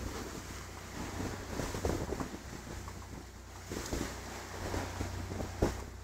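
Wind buffeting the microphone over the steady low drone of a boat's engine, with irregular soft bumps and knocks.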